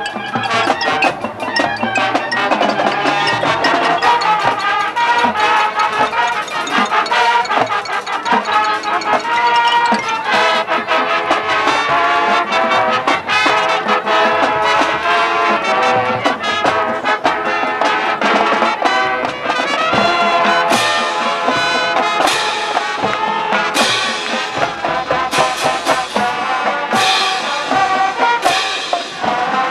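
Marching band playing a brass-led passage over drums and front-ensemble percussion. From about two-thirds of the way in, regular crashes land about every second and a half.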